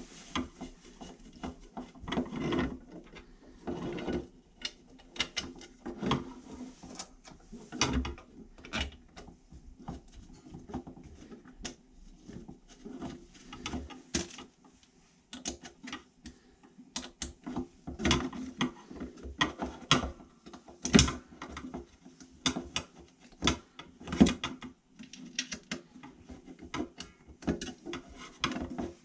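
Irregular clicks, taps and knocks of small bolts, nuts and a flat mounting bracket being handled and fitted together by hand, with an Allen wrench starting to turn a bolt near the end.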